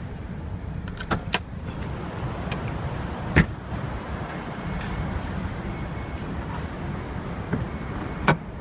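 A car being handled, with sharp latch-like clicks a little after the start, a loud knock about three and a half seconds in, and another click near the end, over a steady low rumble.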